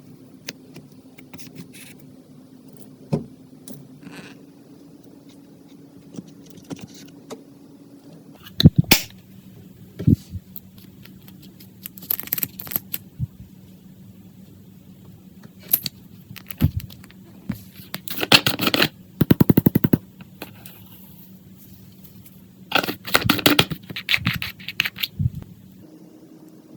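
Clear slime being squished and stretched by hand, giving sticky crackles and quick runs of small pops that come in bursts, the densest near the middle and again toward the end. A faint steady hum sits underneath.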